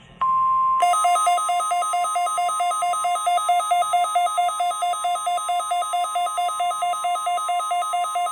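NOAA Weather Radio's steady 1050 Hz warning alarm tone, with a weather radio receiver's electronic alarm joining about a second in, warbling between two pitches at about four beeps a second. Together they are the receiver's alert activation for the required weekly test.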